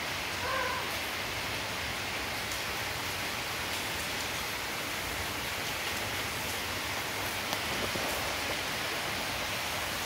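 A steady hiss throughout, with one short, high mew from a cat about half a second in.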